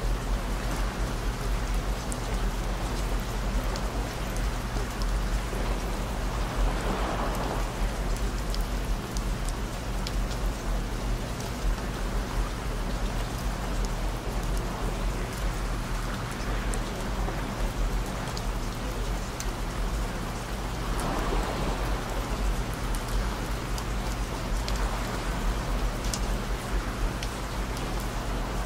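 Steady rain falling, with low steady tones underneath it: the track's layered frequencies and binaural beat, including 55 Hz, 117 Hz and 221 Hz. The rain swells softly a couple of times.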